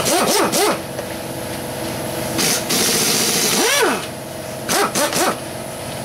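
Kobalt pneumatic impact wrench run in quick trigger bursts, its whine rising and falling with each: a few short bursts at the start, one longer run of about a second and a half in the middle, and two short bursts near the end. It is spinning the 13 mm nuts off a Volkswagen bus engine case.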